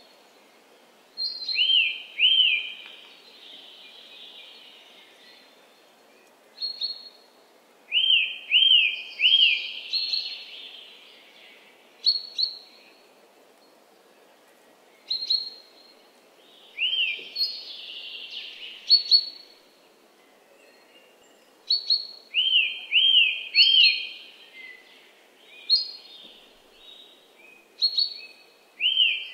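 A songbird singing the same short phrase over and over, every four to six seconds: a sharp high note, then two or three quick arched notes and a short scratchy tail, over a faint steady wetland background.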